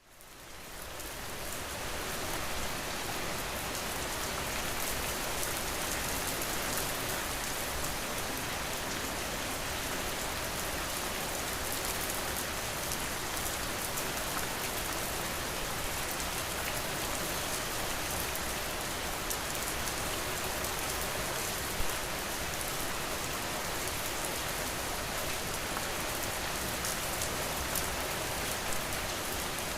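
Steady rain falling, fading in over the first couple of seconds and then holding even, with fine drop ticks throughout and a slightly louder hit about two thirds of the way through.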